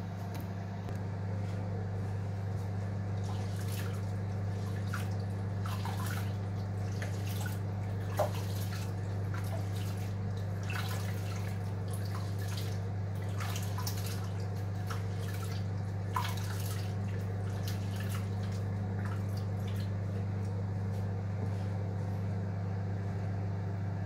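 Rice being washed by hand in a glass bowl of water: swishing and splashing with scattered drips and small clicks, and a sharper knock about eight seconds in and again about sixteen seconds in. Under it runs a microwave's steady low hum.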